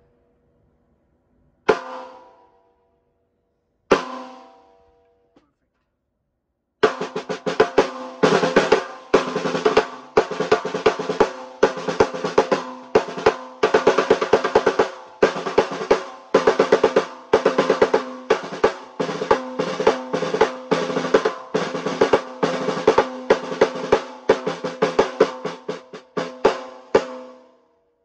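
14x6 mahogany snare drum, tuned high, struck with sticks in rim shots. Two single shots ring out a couple of seconds apart, then about twenty seconds of fast rudiments, rolls and accented strokes. The head rings with a clear pitched tone under every hit.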